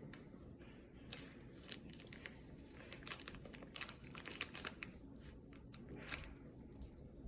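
Plastic snack wrapper crinkling and tearing as a packet is opened, in a run of quick, faint crackles that are busiest midway.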